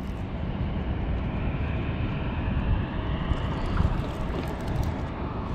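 Steady low outdoor rumble on the microphone while a baitcasting reel is cranked to bring in a fish, with a few faint clicks about midway.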